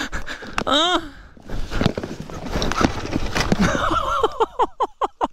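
A fallen KTM 250 XC-W two-stroke dirt bike being wrestled about in dry leaf litter, the rider grunting with effort. Near the end the engine gives a few sharp, irregular pops as it tries to bump start.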